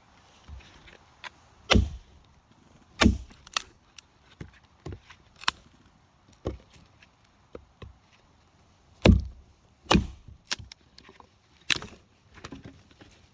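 Hultafors trekking axe chopping firewood: irregular sharp chops of the axe into wood, several heavy strikes with lighter knocks between them.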